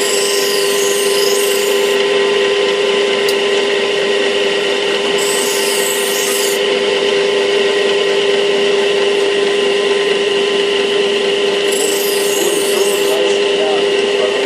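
Steady hum of a spinning grinding wheel, with a knife blade ground against it in three separate passes, each a high hiss of about one and a half to two seconds.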